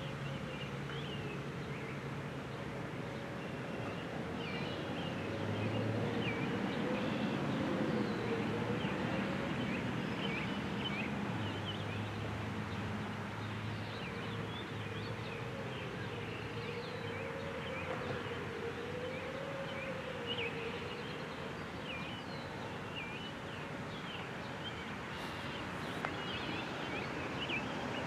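Distant outdoor warning siren sounding a steady alert tone, its pitch and level wavering slowly every few seconds as the rotating head sweeps. Small birds chirp over it.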